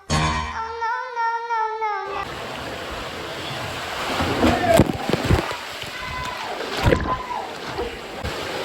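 Music plays for about two seconds and cuts off abruptly. Then comes rushing, splashing river water in a pool below a waterfall slide, with a few faint shouts.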